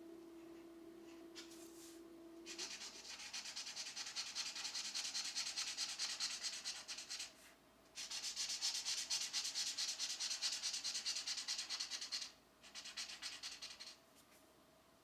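Pencil shading on a coloring book page, rapid back-and-forth strokes scratching on paper. The shading comes in three long runs with short pauses between them, starting about two and a half seconds in.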